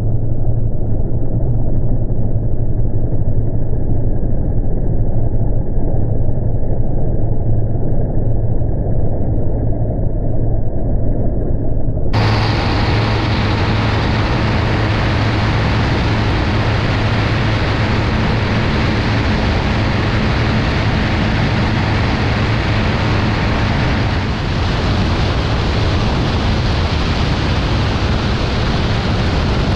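A BRM Citius ultralight's engine and propeller drone steadily at takeoff power through the ground roll and climb-out, with a strong low hum. For the first twelve seconds the sound is muffled; then heavy wind rush over the microphone opens up alongside the engine.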